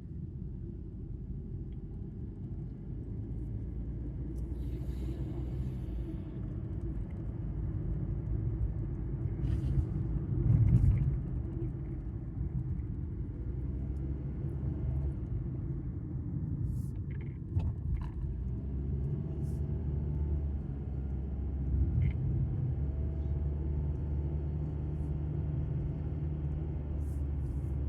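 Steady low rumble of a car heard from inside the cabin while driving, engine and road noise together, swelling briefly louder about a third of the way through.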